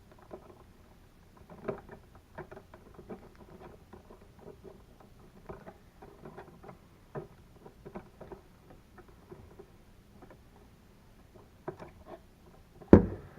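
Channel-lock pliers clicking and tapping against stripped copper wires as the ends are bent into hooks, in small irregular taps. One sharp knock near the end.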